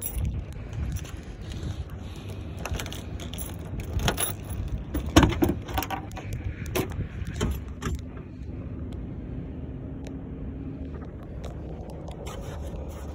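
Handling noises: a run of clicks, knocks and a rattly jingle, with the loudest knock about five seconds in, over a low steady rumble; the clatter mostly stops after about eight seconds.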